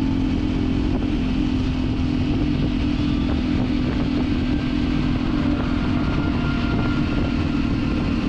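Motorcycle engine running steadily while riding at cruising speed, with a rough wind rumble on the microphone.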